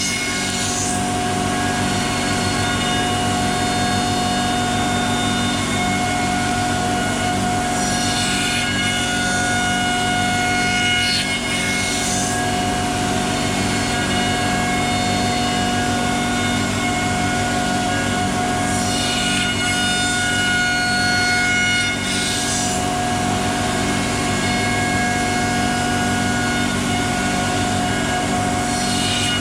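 CNC router running while it cuts wood: a steady machine whine of several tones, with harsher, hissier cutting noise that swells and fades a few times as the bit works the wood.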